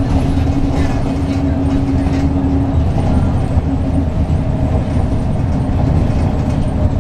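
Interior noise of a 2004 Eldorado EZ-Rider II shuttle bus under way, its Cummins ISB diesel engine and Allison automatic transmission running with a steady rumble and road noise. A steady hum fades out about three seconds in.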